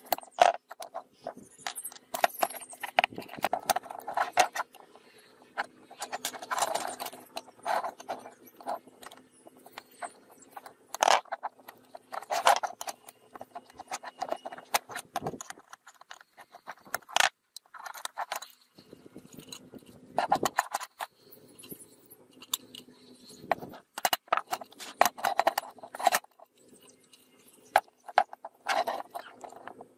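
Rusty metal parts of an old Feuerhand hurricane lantern rattling, clinking and scraping as it is handled and taken apart, with irregular sharp knocks.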